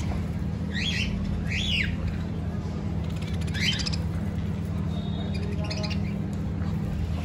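Small caged birds, budgerigars and finches, chirping: a few short, sharp calls in the first four seconds, each sliding in pitch, over a steady low hum.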